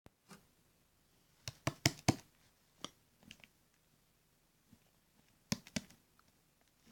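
Scattered sharp clicks and taps in a quiet small room: a quick run of four about a second and a half in, a single one shortly after, and another pair near the end.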